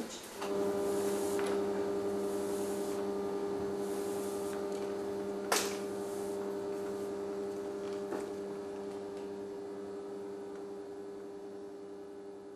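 A steady low hum with several overtones that starts about half a second in and slowly fades away. A single sharp click about halfway through.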